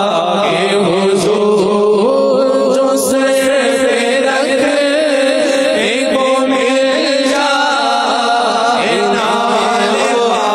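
Male voices chanting an Urdu naat (devotional poem in praise of the Prophet) in a slow, melodic style without instruments, over a steady held note.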